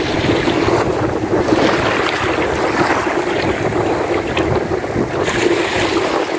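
Strong wind buffeting the microphone, with surf washing onto the beach underneath.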